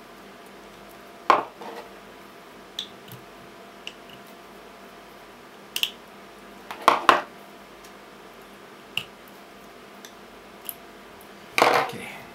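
Scattered metallic clicks and taps as a small flat screwdriver works the leftover nickel-strip tabs on the ends of 18650 lithium-ion cells and the cells are set down on the tabletop, with a quick double click midway and a longer clatter near the end.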